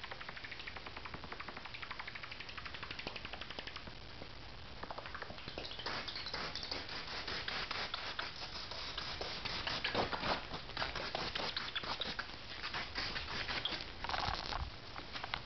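Bat hidden in carport rafters calling with a rapid run of clicking, chattering squeaks, growing louder and busier about halfway through, with harsher, noisier calls near the end. The calls are those of a disturbed, agitated bat.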